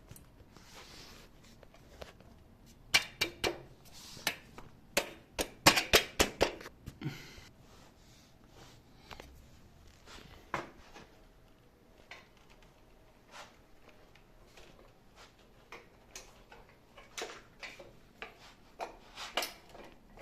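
Aluminium door threshold parts being pushed and tapped into place: a series of sharp clicks and knocks, coming thick and fast about three to seven seconds in, then scattered ones.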